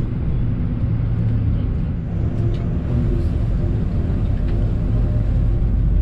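Steady low rumble of a motor vehicle running.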